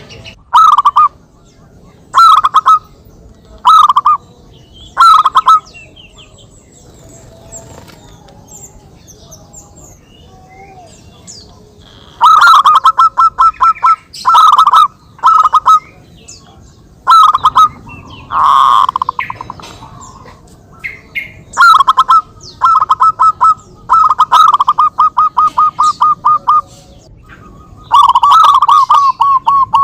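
Zebra doves (perkutut) cooing, each phrase a rapid run of staccato trilled coos, the birds answering one another. Four short phrases come first, then after a pause of several seconds longer trilled phrases follow one after another.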